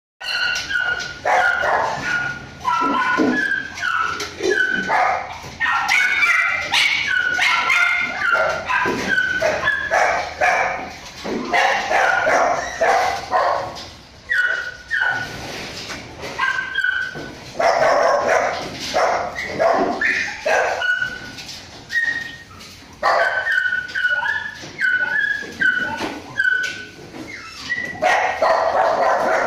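Many kennelled dogs barking and yelping at once, short calls overlapping with hardly a pause.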